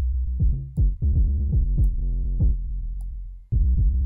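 Electronic drum-machine beat with deep 808 bass and synth, played back from Ableton through a dynamics processor. It cuts out briefly about three and a half seconds in and then starts again.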